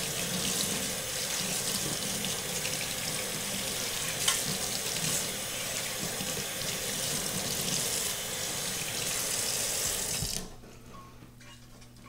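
Kitchen faucet running onto a trumpet being rinsed of soap in a stainless steel sink, a steady rush of water splashing over the brass tubing and into the basin, with a brief knock about four seconds in. The water sound cuts off near the end, leaving a faint low hum.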